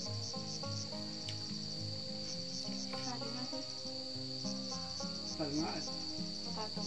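Insects chirping steadily: a constant high-pitched ring with a quicker pulsing chirp above it, continuing throughout.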